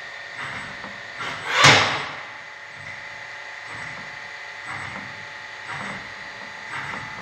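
FANUC Robodrill T21iD vertical machining centre running, with a steady high whine and soft pulses about once a second. A louder rushing burst lasting about half a second comes about one and a half seconds in.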